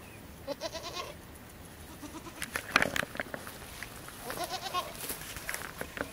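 Goats bleating: two wavering bleats, one about half a second in and another about four seconds in. Between them comes a brief burst of sharp clicks and knocks.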